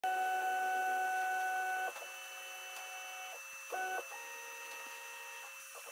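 Stepper motors of an NBX-5040 CNC router driving its axes, whining in steady tones that jump to new pitches as each move changes. The whine is loudest for the first two seconds, with a brief louder burst in the middle, as the V-bit is brought down onto the workpiece to begin engraving. A few light ticks come near the end.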